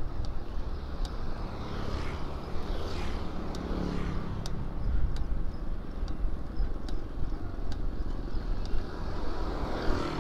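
Wind rumbling on the microphone and tyre noise from an Element FRC 38 gravel bike ridden on asphalt, with faint clicks about once a second. A motor vehicle swells past about three to four seconds in.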